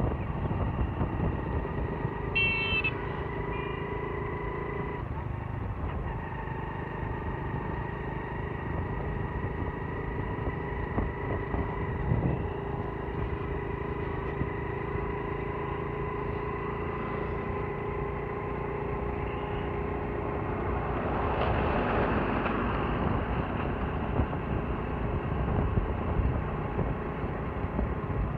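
Motorcycle engine running steadily under way, with a rushing road noise. A short horn beep sounds about two and a half seconds in, and the rushing noise swells for a couple of seconds about three-quarters of the way through.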